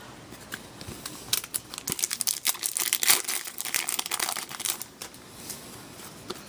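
Trading-card pack wrapper crinkling, with light tearing, as it is opened and handled; rapid crackling at its busiest through the middle.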